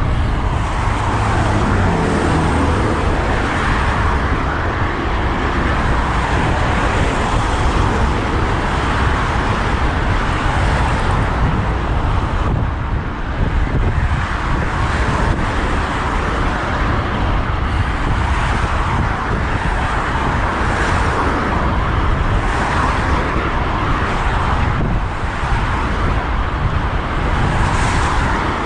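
Steady road traffic noise heard from a bicycle on a main road, with cars passing by. About two seconds in, one vehicle's engine note drops in pitch as it goes past.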